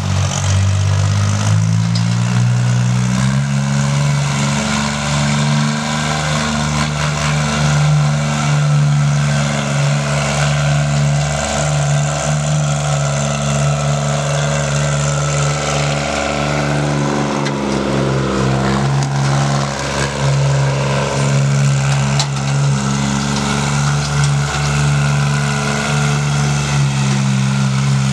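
Sonalika DI 22 compact tractor's diesel engine running steadily while pulling a 7×7 disc harrow through the soil, its engine note rising in pitch over the first few seconds and then holding.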